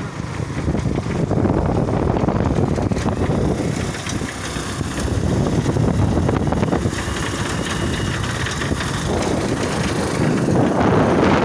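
Wind rushing over the microphone of a moving motorcycle, with the bike's engine and road noise running underneath; it gets louder near the end.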